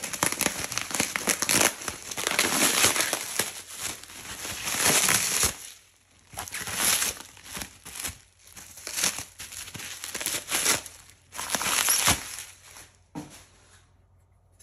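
Plastic bubble wrap crinkling in repeated bursts as it is pulled off a stainless steel oven trivet, dying away near the end.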